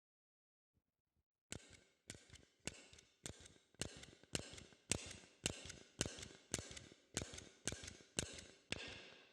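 A steady series of sharp clicks or taps, about two a second and about fifteen in all, starting a second and a half in and growing louder, each followed by a fainter second click.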